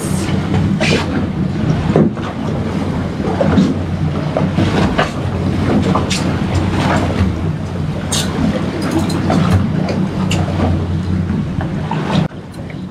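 Boat's outboard engine idling with a steady low hum, under scattered short sharp noises. The sound drops off sharply near the end.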